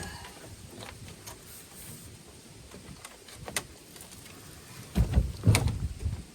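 Old cabin door being handled after it comes off its hinges: a few light clicks and knocks, then a louder pair of thumps and bumps about five seconds in.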